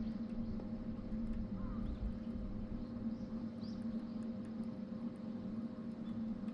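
Steady low electric hum of a bow-mounted electric trolling motor holding the boat, over a low rumble of water and wind, with faint bird chirps.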